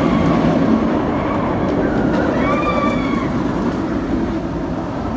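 B&M inverted steel roller coaster train running along the track with a loud, steady rumble. A high held scream rises over it about two seconds in, and the rumble eases slightly toward the end.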